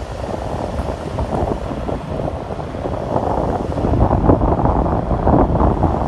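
Wind buffeting the microphone over the rumble of a car driving along a road, getting louder about four seconds in.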